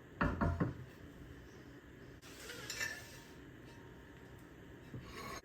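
Dishes and cutlery clattering: three quick knocks just after the start, a rattling stretch around three seconds in, and another knock near the end.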